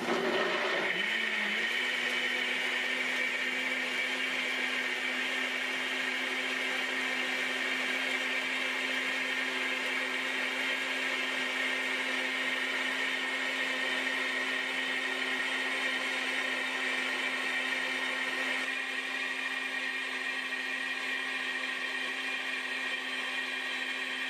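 A NutriBullet RX 1700-watt blender running its SouperBlast soup cycle, blending chopped vegetables and broth in the pitcher. It spins up over the first second or so, then holds a steady high motor whine, which eases slightly in level near the end. On this cycle blade friction heats the soup as it blends.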